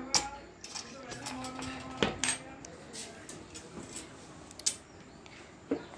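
Metal clinking and knocking as steel parts and tools are handled while a bolt is fitted to a submersible motor's end cover: about five sharp knocks, some with a brief metallic ring.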